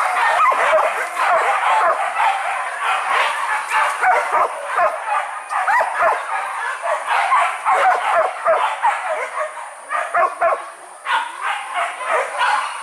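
A pack of hunting dogs barking and yelping without pause, many voices overlapping, with a brief lull a little after ten seconds.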